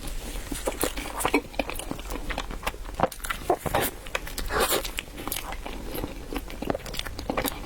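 Close-miked eating sounds: someone biting and chewing chilled bread, with irregular wet smacks and short clicks.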